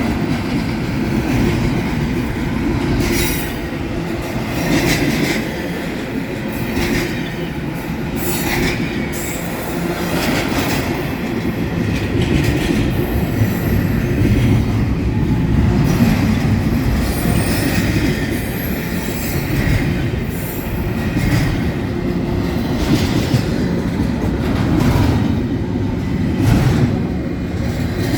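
Double-stack container freight train rolling past close by: a loud, continuous rumble of the cars on the rails, with frequent clacks of the wheels.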